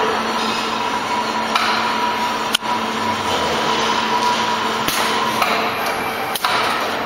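Automated coil packing line machinery running with a steady hum, broken by a few sharp knocks.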